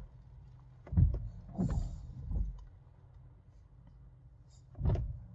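A few short, soft knocks and clicks inside a quiet car cabin: three in the first half and one more near the end, over a faint steady hum.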